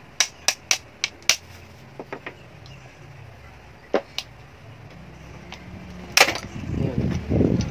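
Sharp plastic clicks and snaps from prying the top cover off a Canon 810 ink cartridge: a quick run of about five in the first second and a half, then scattered single clicks, the loudest about six seconds in. Low handling and rustling noise builds near the end.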